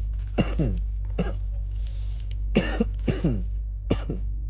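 A man's short vocal bursts, each falling sharply in pitch, coming in a few quick clusters, over a steady low hum.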